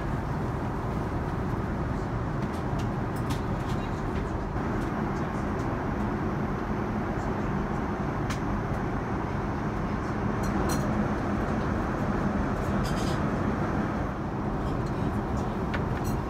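Steady drone of an Airbus A350-900's cabin noise, the engines and airflow heard from inside the cabin. Faint paper clicks come through as the menu pages are handled and turned.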